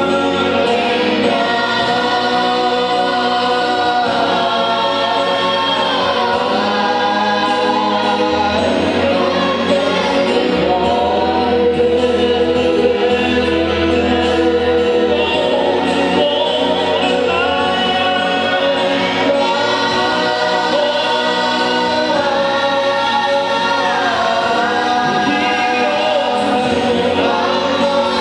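A choir singing a gospel worship song with instrumental backing, voices holding and moving between long notes over a steady bass line.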